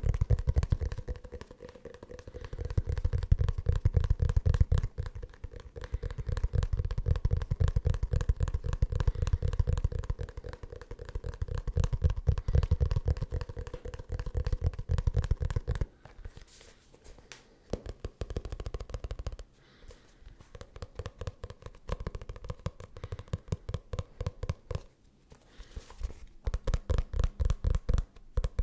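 Fingertips tapping rapidly on a leather notebook, dull thumps many times a second. The tapping softens and thins out around the middle, then comes back louder, in distinct strokes, near the end.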